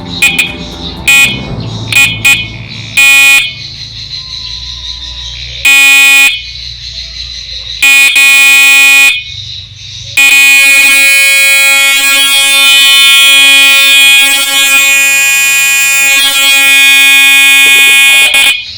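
Round plastic universal electric horn for electric scooters and mini cars, powered from a 48-volt battery, sounding with a steady buzzing tone. It is tapped in about six short beeps, then two longer blasts, then held in one long blast of about eight seconds; pretty loud.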